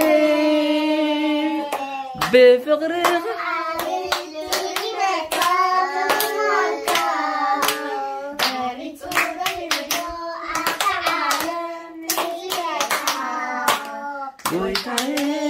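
A young child singing a song in a high voice, with long held notes, while hands clap along in many sharp claps.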